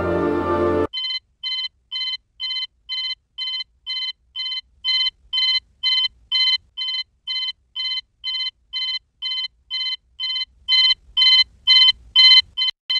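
Music cuts off about a second in, then a small quartz travel alarm clock goes off with short, shrill electronic beeps, about two a second, which get louder over the last couple of seconds.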